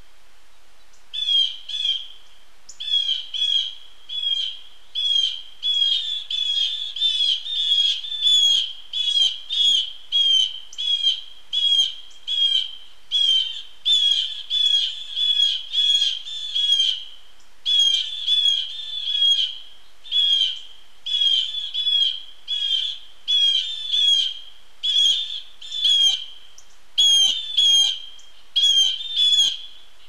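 Blue Jays giving harsh alarm calls, repeated about once a second and often in quick pairs, raised at a Cooper's Hawk nearby.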